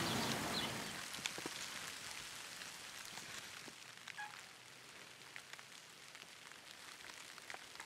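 Faint woodland ambience: a soft even hiss with scattered light ticks and crackles, sinking lower over the first few seconds.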